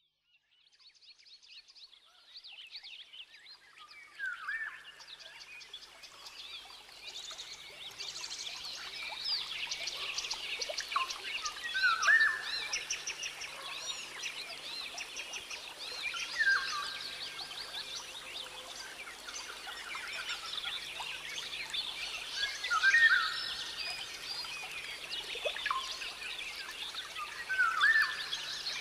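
Rainforest ambience fading in from silence: a dense, steady chorus of chirping birds and other forest creatures. A louder call stands out over it five times, about every five to seven seconds.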